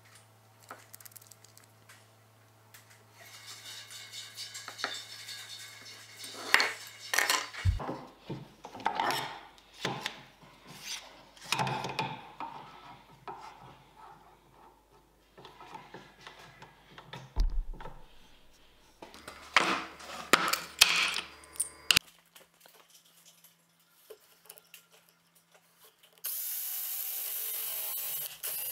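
Irregular scraping and rubbing strokes of hand work on wood. Near the end a handheld drill with a Forstner bit starts boring into a bent wooden strip and runs steadily.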